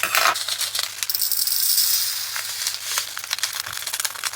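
Tiny plastic resin diamond-painting drills pouring and rattling into a plastic storage container: a dense pattering rush for a second or two, with scattered small clicks around it.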